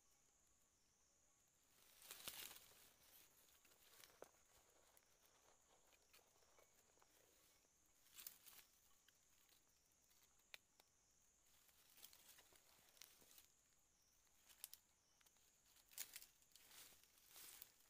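Near silence, broken by a few faint rustles and crackles of dry bamboo leaf litter as the trap is handled and grain is scattered, about two seconds in, around eight seconds in and again near the end.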